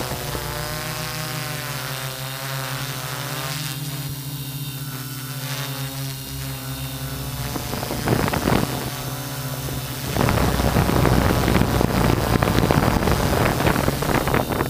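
Multicopter drone's electric motors and propellers running with a steady buzzing whine, heard from the camera on board. About ten seconds in, wind rushing over the microphone grows louder and partly covers the motors.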